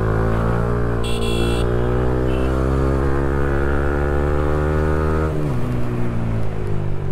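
Motorcycle engine under way, its pitch rising slowly as it pulls for about five seconds, then dropping sharply as the throttle is closed. A brief shrill high-pitched tone sounds about a second in.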